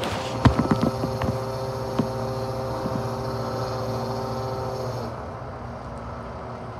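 Roll-off truck running while its tarp arm pulls a cover over the container: a steady mechanical hum and whine that drops off about five seconds in, with a few knocks near the start.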